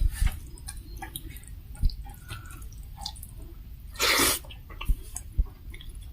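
Close-miked eating sounds from a dal bhat meal: wet mouth clicks and chewing with a few low thumps, and one loud breathy burst lasting under half a second about four seconds in.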